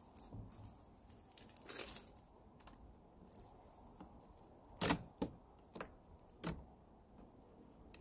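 Scattered sharp clicks and light knocks of wood as a beekeeper works the wooden inner cover of a beehive loose and lifts it off, with a brief rustle of the bee suit. The loudest clicks come in a cluster about five seconds in.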